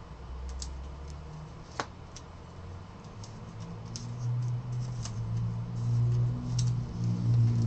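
Trading cards and foil pack wrappers handled and shuffled by hand: scattered light clicks and crinkles, with one sharper click about two seconds in. A low hum grows louder in the second half.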